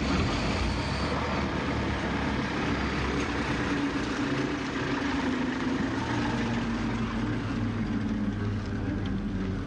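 Diesel engine of a small railcar running at low speed, a steady drone whose note shifts slightly partway through.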